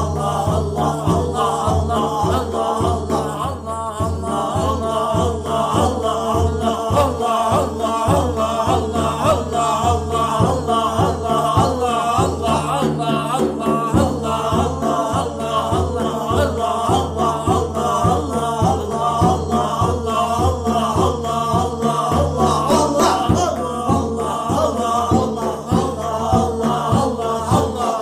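Group zikr chanting of the name Allah: several voices chanting together over a steady low drone, with an even rhythmic pulse throughout.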